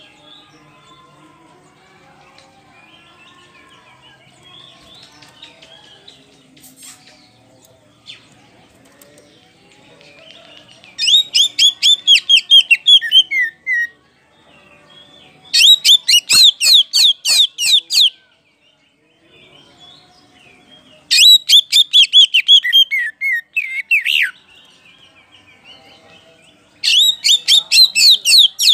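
Caged Oriental magpie-robin (kacer poci) singing loud and open ('ngeplong'): four loud bursts of rapid repeated high notes, each about three seconds long and ending in a few lower falling notes. The first burst comes after a quiet first third.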